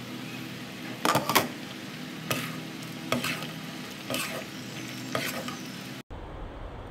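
Metal spatula scraping and stirring a thick okra and beef stew in a nonstick wok, about one stroke a second, over the steady sizzle of the simmering stew. It cuts off abruptly near the end.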